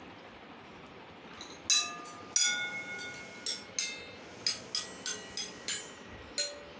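Stainless steel bowls of a homemade jal tarang, each holding a different amount of water, struck one after another with a metal spoon. Starting about a second and a half in, they give about a dozen metallic pings, each ringing on at its own pitch, the pitch set by how much water is in the bowl.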